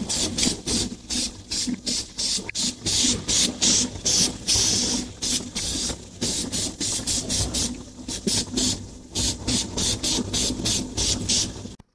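Aerosol can of gold spray paint hissing in short, quick bursts, about two a second, with one longer spray near the middle, over a steady low hum. The hissing cuts off abruptly just before the end.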